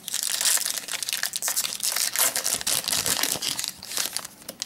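Foil wrapper of a 2012 Topps Strata football card pack being torn open and crumpled by hand: a dense, crackly crinkling that stops just before the end.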